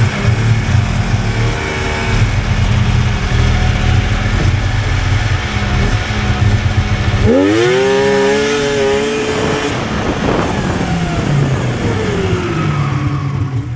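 Polaris XLT 600 snowmobile's three-cylinder two-stroke engine running steadily at low speed, then given a hard throttle hit about halfway through: the pitch climbs steeply, holds for a couple of seconds, and falls away as the throttle eases off.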